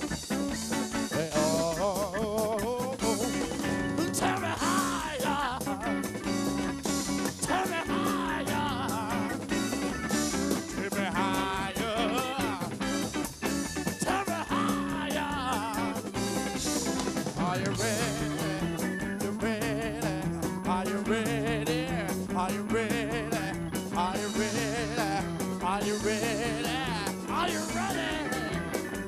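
Live electric blues band playing: electric guitar over drum kit and bass, with a voice singing near the end.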